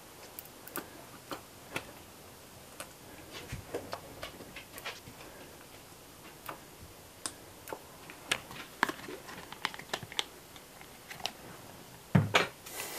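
Mayonnaise squeeze bottle being squeezed over English muffins on a metal baking sheet: scattered light clicks and ticks, with a louder knock near the end.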